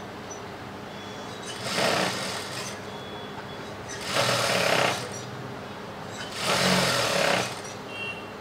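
Motor-driven sewing machine stitching lace trim onto a silk blouse edge, running in three short bursts of about a second each with pauses between.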